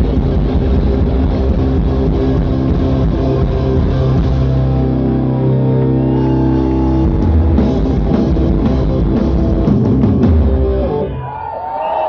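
Live rock band, with distorted electric guitar, electric bass and drum kit, playing loudly; the music stops about 11 seconds in as the song ends, and the crowd starts cheering and whooping.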